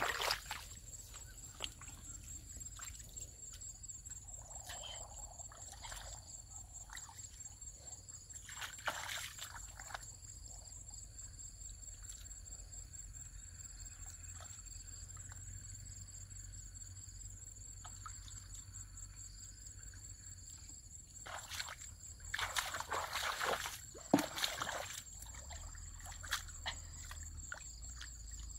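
Hands groping and sloshing in shallow muddy water, feeling for fish, in a few short splashing bursts, the longest and loudest near the end. A steady high insect trill runs underneath.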